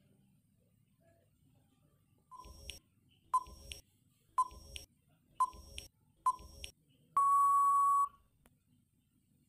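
Quiz countdown timer sound effect: five short beeps about a second apart, each with a low thump, then one long beep of about a second signalling time out.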